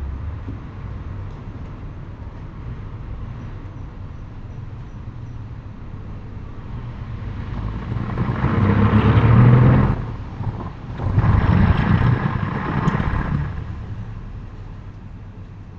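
Road vehicles passing by: a steady low rumble with two passes that each build and fade, the first about halfway through and the second shortly after.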